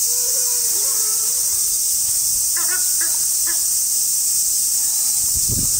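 Steady, high-pitched insect chorus hissing without a break. A few faint short chirps come in the middle, and a low thump comes near the end.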